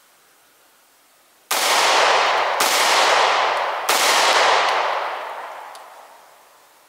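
Three pistol shots fired in quick succession, about a second apart, starting about a second and a half in. Each has a long echoing tail, and the last one fades out over about two seconds.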